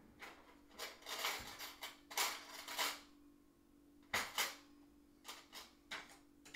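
Metal cutlery clattering in a kitchen drawer as forks are rummaged for and picked out, in several bursts, followed by two sharp knocks and a few lighter clicks, over a faint steady hum.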